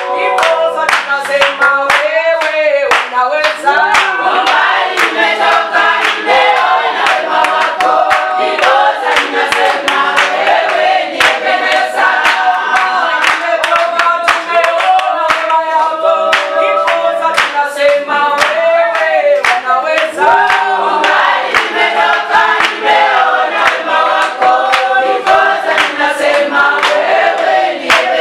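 Congregation singing together with rhythmic hand clapping.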